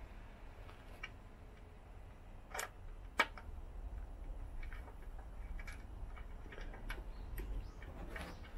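Scattered small clicks and taps of an Allen key and metal and plastic headset parts being handled at a road bike's head tube, the two loudest about two and a half and three seconds in, over a low steady rumble.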